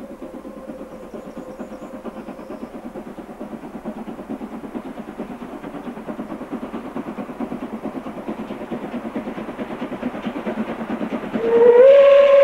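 DB class 23 steam locomotive 23 105 working toward the listener, its rapid exhaust beats growing louder as it approaches. Near the end its steam whistle sounds, a loud steady note that slides up slightly as it starts.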